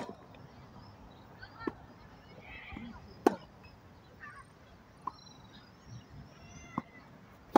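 Tennis ball struck back and forth with rackets in a rally: a sharp pop about every second and a half, the loudest about three seconds in and again at the very end.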